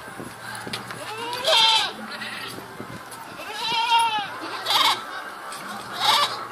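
Goats bleating, about four separate calls. The longest is a wavering bleat about halfway through.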